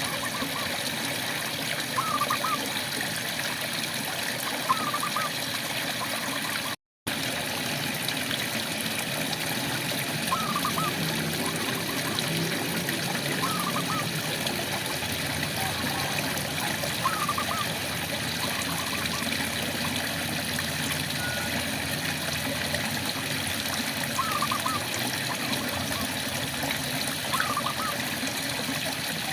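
Steady rain with trickling water, and a frog repeating a short rising call every two to three seconds. The sound cuts out completely for a moment about seven seconds in.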